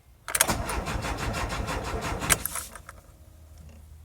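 Van's starter cranking the engine for about two seconds in quick, even pulses without it catching, ending in a sharp click as the key is released: the kill switch is stopping the engine from starting.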